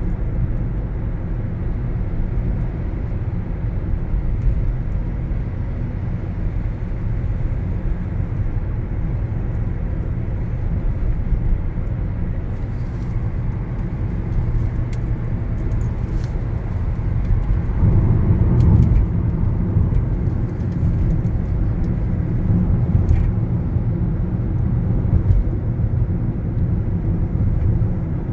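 Steady low rumble of a car driving, heard from the passenger seat inside the cabin: tyre and engine noise, swelling a little partway through, with a few faint clicks.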